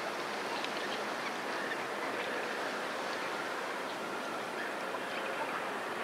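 A flock of brent geese calling, many short calls overlapping and scattered throughout, over a steady hiss.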